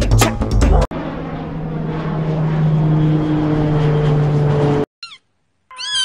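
A jet airliner taking off: a steady engine noise with a low hum that slowly grows louder for about four seconds, then cuts off suddenly. Music with drums ends about a second in, and near the end a cat gives a short cry and then a meow.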